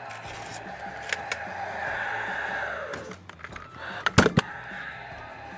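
A cordless metal-connector (hardware) nailer firing a nail through a joist hanger into an LVL beam: a sharp double bang about four seconds in, after a few light clicks of the tool being handled.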